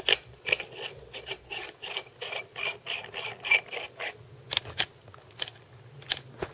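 Dry threads of a paintball barrel tip squeaking and scraping as it is twisted onto the barrel, in a run of short strokes about two or three a second that thin out near the end. The threads are dry and need oil.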